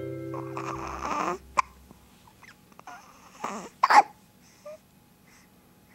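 A baby hiccupping a few times, short sharp catches with the loudest near the middle, over music that stops about a second and a half in.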